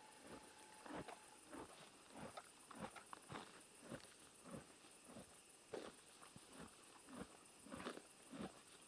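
Horse chewing: a faint, even crunching about three times a second.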